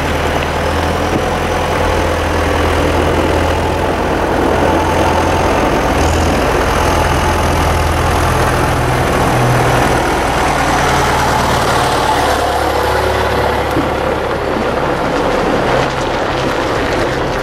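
John Deere tractor's diesel engine running steadily close by, its low note shifting a little in pitch as it works.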